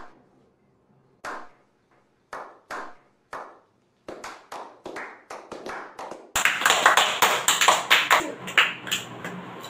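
Hand clapping: slow single claps spaced about a second apart that quicken into a faster patter, then from about six seconds in several people clapping fast together, louder.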